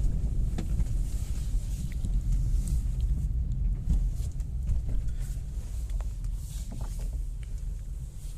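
Hyundai Grand i10 on a road test, a steady low engine and road rumble slowly easing off, with a few faint ticks. No gearbox hum comes through: the replacement manual gearbox runs quietly in every gear.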